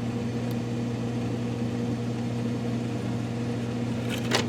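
1987 GE refrigerator running with a steady mechanical hum, with a short burst of clicks and clatter about four seconds in.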